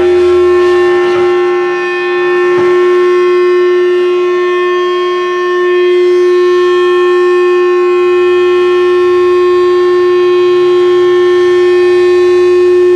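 Loud electronic drone held on one steady pitch with a stack of overtones, a sustained tone in a harsh noise performance.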